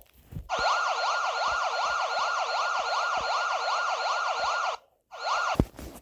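Electronic siren-style emergency alert tone, its pitch sweeping up and down rapidly about three times a second. It cuts out shortly before the end, comes back briefly, and stops with a sharp thump.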